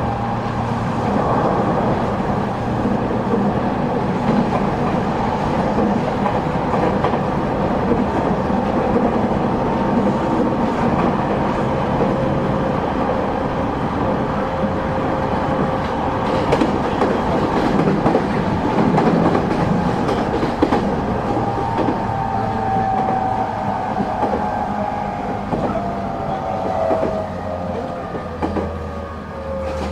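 Running sound inside a JR 209 series 2200 subseries motor car: steady wheel and rail noise with some clickety-clack. In the second half, the traction-motor whine falls slowly in pitch as the train slows.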